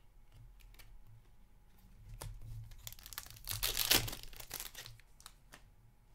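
Hands handling hockey trading cards, with crinkly plastic rustling and a louder burst of crinkling about three and a half to four seconds in.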